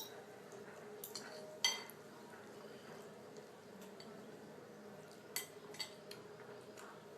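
Cutlery clinking against dishware during a meal of noodles: several short ringing clinks, the loudest about one and a half seconds in, with a couple more near the end.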